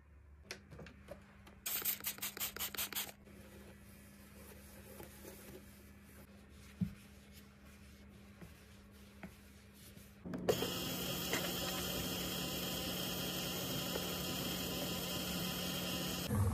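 Handling sounds of items being restocked into a mini fridge: a quick run of about nine rubbing, rasping strokes around two seconds in, then scattered light clicks. About ten seconds in the sound changes to a steady hum with hiss.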